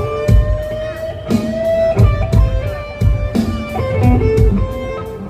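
Electric guitar playing slow blues licks, with sustained notes that bend in pitch over a repeated low beat.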